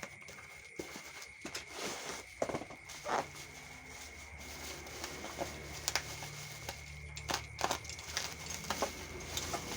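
Packaging being handled: scattered clicks, taps and rustles from cardboard and plastic, with a thin steady high tone and a low hum underneath.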